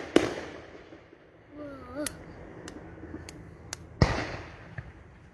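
Fireworks exploding: a loud bang just after the start and another with a low rumble about four seconds in, with a few sharp cracks between them.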